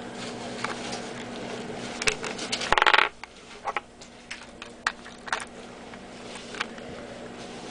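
Small clicks and taps of a Samsung S730 phone being handled. A short buzzing tone about three seconds in is the loudest sound.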